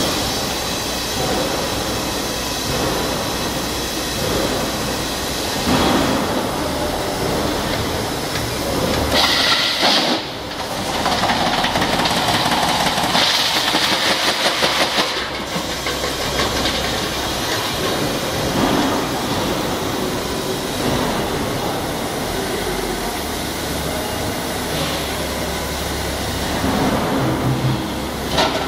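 Vessel spinning and beading machine running with a stainless steel drum in it: a steady mechanical running noise, with louder, higher-pitched stretches about a third of the way in and again around halfway as the forming rollers work the metal.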